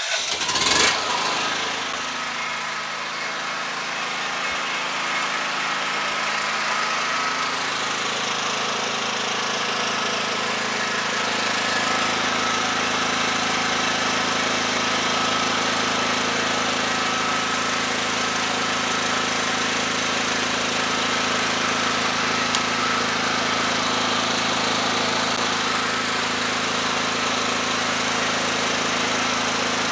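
Genpac 7800E petrol generator's four-cycle engine running steadily just after starting, on a test run after a carburetor service, fresh fuel and a new spark plug. Its note shifts slightly about ten seconds in, then holds even.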